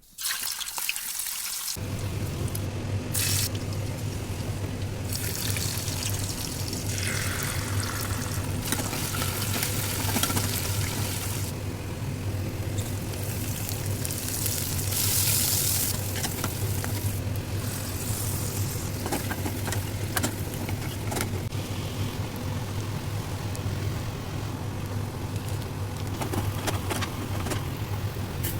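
Kitchen cooking noise: a steady low hum under an even hiss, with a few light clicks, starting about a second and a half in.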